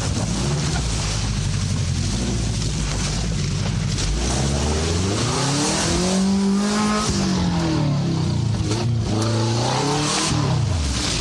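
Car engine of the Subaru-based "truckaru" running steadily, then revving up and back down in a long climb about four seconds in, and again more briefly near the end, as it is driven hard.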